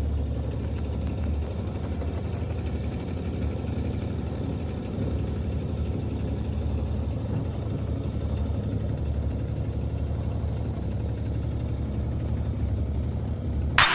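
An engine running steadily at an even speed, a low continuous hum.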